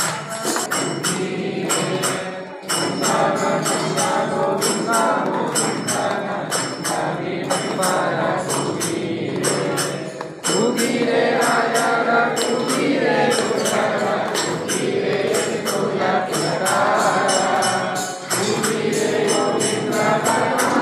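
Hindu devotional chanting sung to a steady jingling beat, in phrases that break off and start again about every eight seconds.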